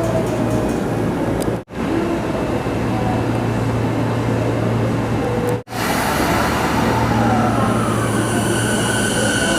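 Electric commuter train running through the station: a steady low hum and rumble of motors and wheels. The sound drops out briefly twice, and steady high tones come in near the end.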